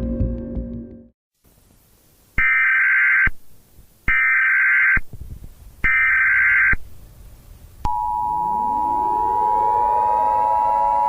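Emergency Alert System signal: three identical screeching data bursts of the SAME header, each about a second long. About eight seconds in, the steady two-tone attention signal starts, joined by a rising layer of tones that settles into a sustained chord. This is the start of a new emergency alert. A brief tail of music fades out at the very start.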